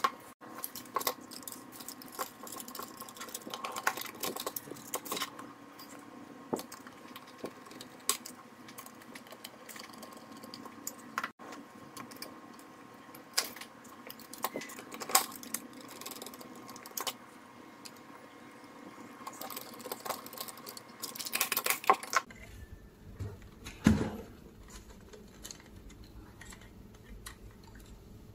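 Irregular small clicks, taps and clatter of hands working on a thermal receipt printer: a screwdriver on small screws, the plastic housing and the metal print mechanism being handled, and cable connectors being fitted. The clicking stops about 22 seconds in, leaving a faint hum with one thump a couple of seconds later.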